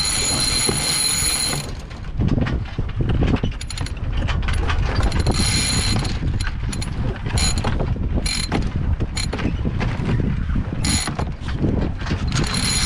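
A sailboat's sheet winch and blocks ratcheting in repeated short bursts as a sheet is hauled in during a tack, over a low rumble of wind on the microphone.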